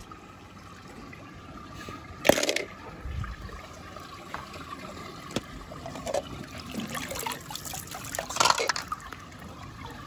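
Water sloshing and trickling as a hand moves clear plastic toy capsules about in a shallow pool, with two brief louder bursts, about two seconds in and again near the end.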